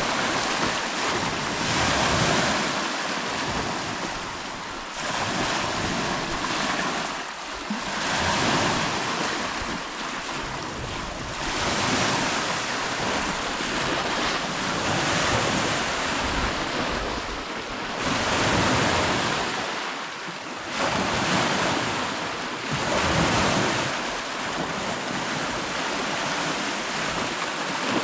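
Lake waves washing in, the surf swelling and falling back every few seconds.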